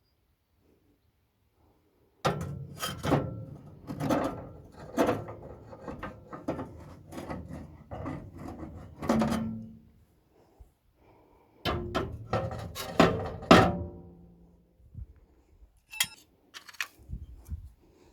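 Metal clattering and clanking in two bouts, a long one and a shorter one, with short ringing tones after the knocks.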